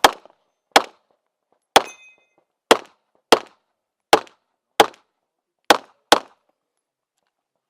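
Pistol shots from a CZ Shadow 2 fired through an IPSC stage: nine sharp single shots at an uneven pace of about one every half second to one second.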